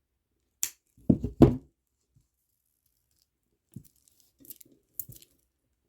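Scissors snipping the old string of a beaded kandi bracelet with one crisp snip about half a second in. Two loud knocks follow about a second in, then a few faint light clicks.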